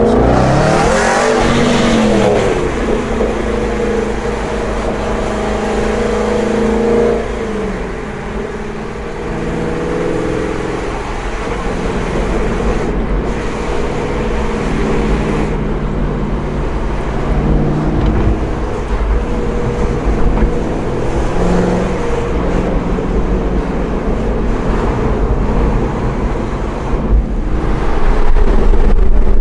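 Aston Martin Vantage GT8's V8 with its titanium exhaust, heard from inside the cabin: it revs up sharply and falls back at the start. It then runs steadily at moderate revs, easing off about seven seconds in, and grows louder again near the end.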